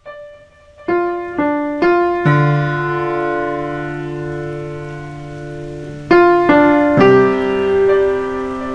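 Slow piano music: three single notes followed by a held chord that rings for a few seconds. The same phrase starts again about six seconds in.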